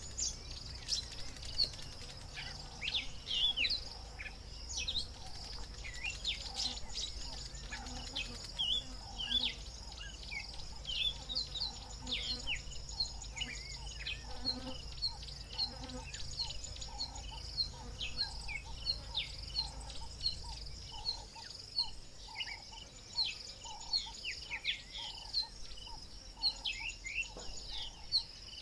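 Bush ambience: a steady high-pitched insect drone with many short bird chirps scattered throughout. A low hum underneath stops about three-quarters of the way through.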